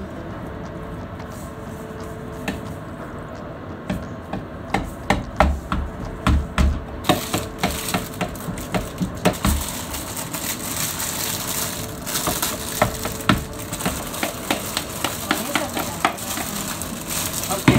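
Kitchen handling sounds: repeated light knocks and clicks of utensils, bowls and food being handled at the counter and sink. A steady hiss joins them about seven seconds in.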